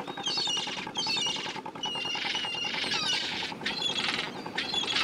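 A flock of gulls calling: overlapping squawks and squeals several times a second, with a couple of longer, drawn-out calls around the middle.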